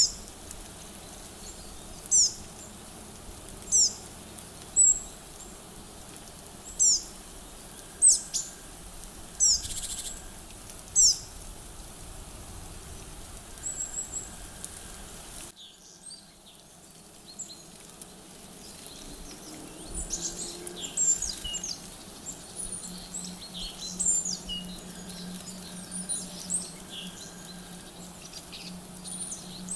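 Small wild birds calling with short, sharp, high chirps that drop in pitch, spaced a second or two apart. About halfway through this gives way to a busier run of many quick chirps.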